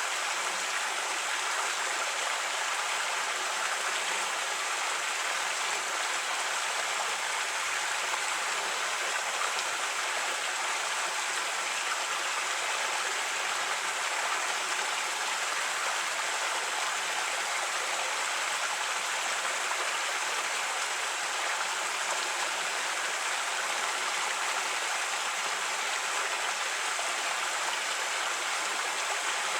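A creek running steadily over rocks: an even rush of flowing water.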